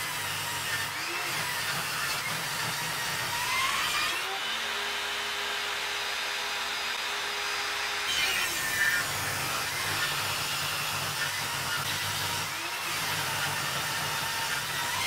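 Table saw ripping a wooden board along the fence, the blade cutting with a steady noise. From about four to eight seconds in, the sound changes to a steady tone as the blade spins free between cuts, then the cutting resumes.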